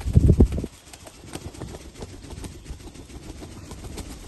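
Irregular clicks and taps with a heavy bump in the first second, from an African grey parrot clambering on a curtain rod.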